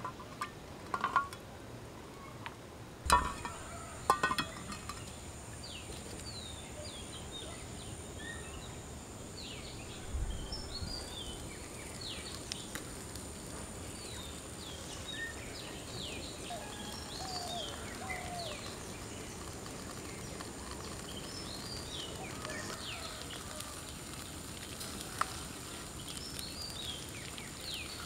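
Small birds chirping over and over in short, quick downward notes against a steady high-pitched hum. In the first few seconds come several sharp clinks and knocks of a coconut-shell cup and cookware on a frying pan.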